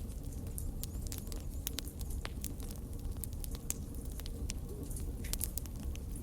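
Fire crackling: many irregular sharp pops and snaps over a steady low rumble.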